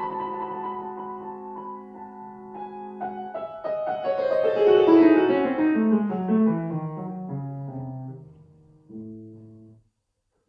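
Grand piano played solo. A held chord fades away, then a run of notes falls from the treble down into the bass in the second half, and low closing chords sound near the end.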